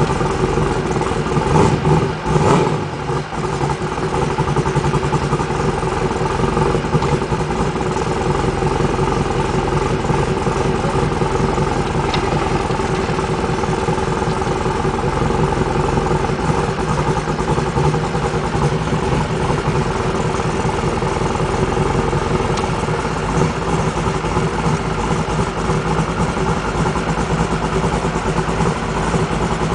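A vehicle engine idling steadily and loudly, briefly picking up about two seconds in.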